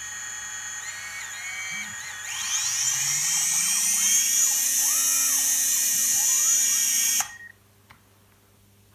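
DJI Mavic Pro's four brushless motors spinning without propellers: a high whine, then louder with pitches gliding up and down as they are throttled from about two seconds in, cutting off suddenly about seven seconds in.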